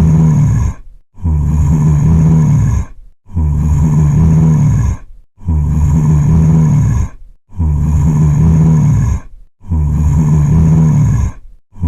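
Zombie groan sound effect: a low moaning groan repeated as an identical loop, one roughly every two seconds with a short break between, each groan dropping in pitch at its end.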